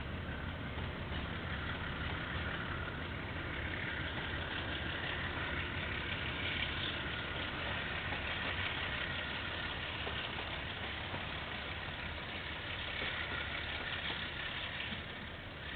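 Freight train wagons rolling past, a steady rumble that eases off near the end as the last wagons clear. Heard through a security camera's microphone, with no high end.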